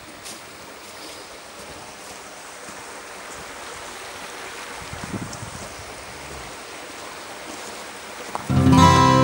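Steady rushing of a river flowing. Near the end, background music starts suddenly and is louder than the water.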